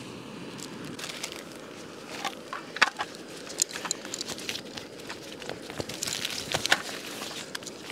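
Crinkling and rustling of a small packet being handled and opened, with scattered sharp clicks and ticks.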